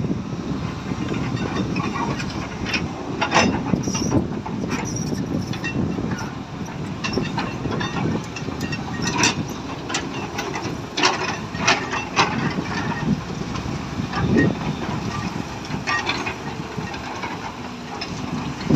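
Excavator's diesel engine running with a steady low rumble, broken by irregular sharp clanks and knocks that come every second or so throughout.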